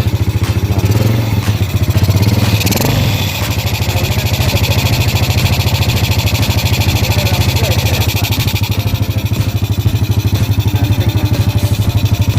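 Freshly rebuilt Yamaha Jupiter Z single-cylinder four-stroke motorcycle engine running with a steady, even, fast putter, given a short blip of throttle about two to three seconds in before settling back to idle.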